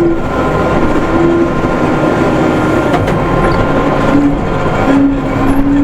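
Case 580M backhoe loader's diesel engine running under load while the machine scrapes hard ground, with a steady pitched whine that shifts up and down and some rattling.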